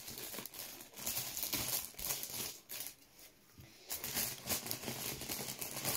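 Scissors snipping through plastic packaging foil, with the foil crinkling and rustling as it is cut and handled. The rustling drops away for about a second midway, then starts again.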